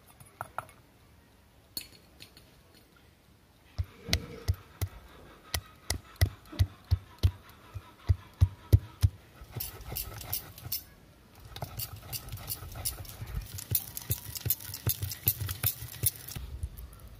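Cashew nuts being crushed and ground on a flat stone slab with a hand-held stone roller. A few light clicks as the nuts are tipped onto the stone, then steady knocks about two a second as the roller pounds them, then a continuous gritty scraping as the roller is rubbed back and forth to grind them into paste.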